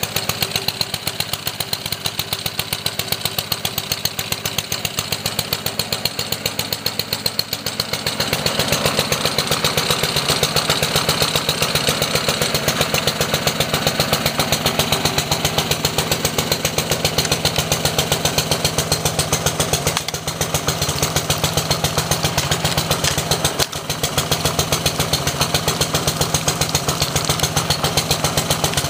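Homelite gas pressure washer's small engine running steadily with the choke still on, a fast even pulse to its note. It grows louder and deeper about eight seconds in and dips briefly twice later on.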